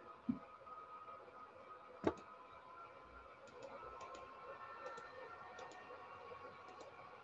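Faint scattered clicks from a computer input device with two dull knocks, the second, about two seconds in, the loudest, over a faint steady electrical hum.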